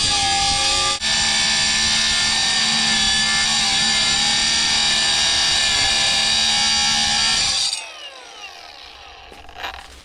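Cordless Milwaukee Fuel saw with a diamond blade cutting steel, running at a steady high whine with a brief dip about a second in. Near the end it is released and winds down with a falling pitch.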